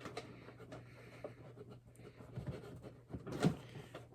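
Model locomotive packaging being handled and worked open by hand, with small taps and scrapes and one louder knock about three and a half seconds in.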